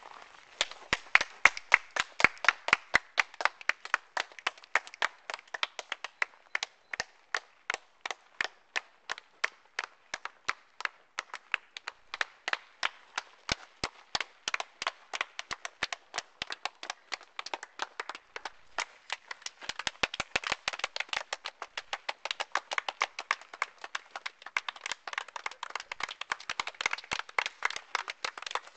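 A rapid, irregular series of sharp clicks or claps, several a second, keeping up throughout.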